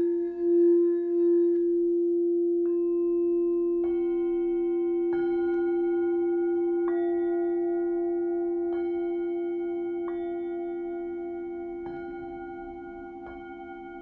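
Crystal singing bowls: a low bowl rings steadily, pulsing at first, while higher bowls are struck softly one after another, about seven times, each new tone ringing on. The whole sound slowly fades.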